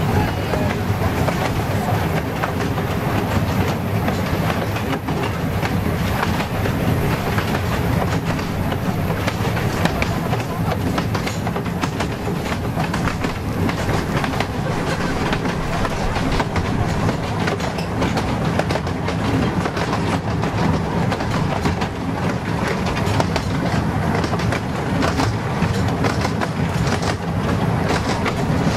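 Miniature steam train running along the track, heard from on board a carriage behind its 0-6-2 side tank locomotive: a steady rumble of wheels on rail with dense, rapid clicking throughout.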